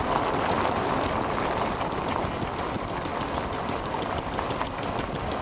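Steady rush of wind and road noise recorded from a moving vehicle on a gravel road, with no distinct engine note standing out.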